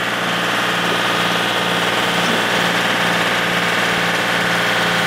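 Small tractor with a mounted snowblower running steadily while throwing snow out of its chute: an even engine hum under a dense rushing sound, building slightly in the first second and then holding level.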